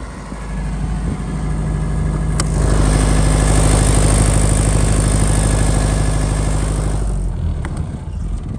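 Yanmar diesel engine of a Himoinsa HYW-20 kVA generator running steadily, then shutting down a little over seven seconds in.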